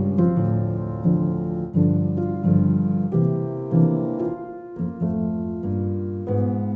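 Background piano music: a gentle melody of single notes and chords, a new note struck about every half second.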